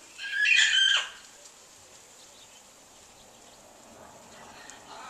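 A large bird gives one loud call, under a second long, just after the start, with fainter calls coming in near the end.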